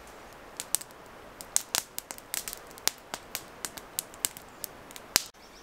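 Campfire crackling: irregular sharp pops and snaps from the burning wood, a few a second, over a faint steady hiss, cutting off suddenly near the end.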